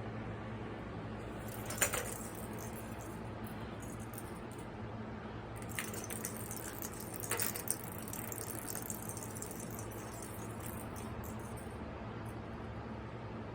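Cat toy rattling and clattering in short bursts, about two seconds in and again from about six to eight seconds in, over a steady low hum.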